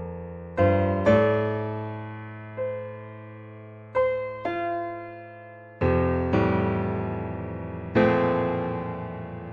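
Slow, gentle solo piano music: single notes and chords struck every second or so and left to ring and fade.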